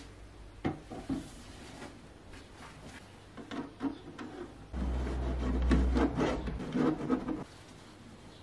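A knock as a plastic pipe is set down on a plastic jug, then scratchy rubbing of a marker and gloved hands working around the pipe where it meets the jug. The rubbing is loudest and heaviest between about five and six and a half seconds in.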